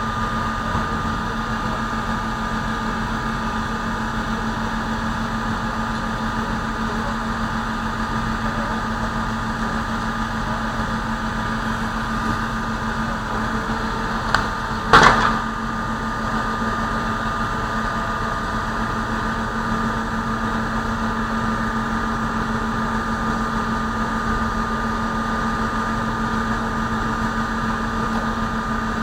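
A steady mechanical hum with two fixed pitches, broken about halfway by a single sharp bang that has a small click just before it.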